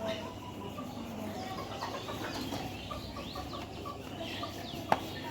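Birds calling in the background, including a quick run of short, evenly spaced call notes in the middle, with a single sharp click just before the end.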